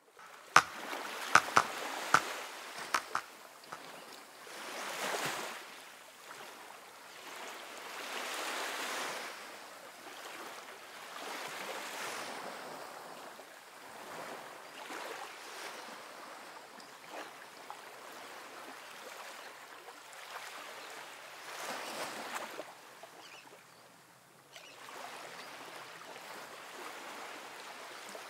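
Metal ice cream scoop scraping through frozen ice cream in a glass dish, in drawn-out scraping strokes every few seconds. A few sharp clicks near the start.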